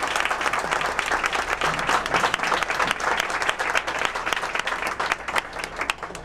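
A small crowd applauding, with one pair of hands clapping close by; the applause thins out near the end.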